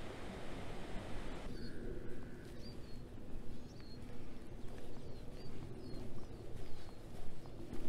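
Small birds chirping: short high calls repeated about once a second over a low background rumble. A rushing noise in the first second and a half cuts off abruptly.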